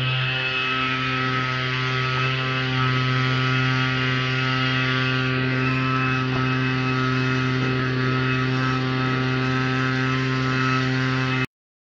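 Steady electrical-sounding hum with many even overtones and some hiss, unchanging throughout, cutting off suddenly near the end.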